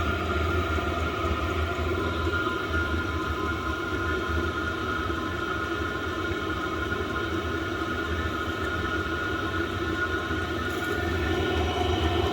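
All-in-one diesel heater running on a waste engine oil and diesel mix, warming up after a restart: a steady low hum with a faint steady whine above it, growing slightly louder near the end.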